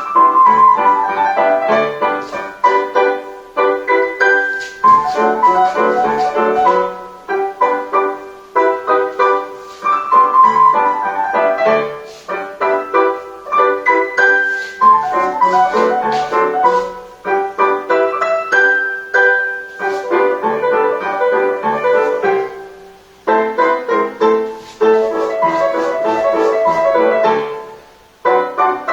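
Solo piano music playing in clear phrases, with short breaks between them, in the style of ballet class accompaniment.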